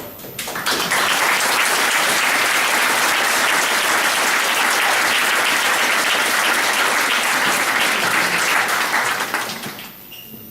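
Audience applauding: the clapping swells within the first second, holds steady, and dies away about nine and a half seconds in.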